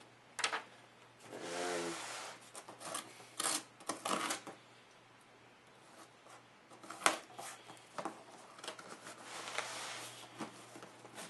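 A long cardboard shipping box being handled on carpet: hands scraping, rubbing and tapping the cardboard in irregular bursts, with a few longer rasps and a sharp knock about seven seconds in.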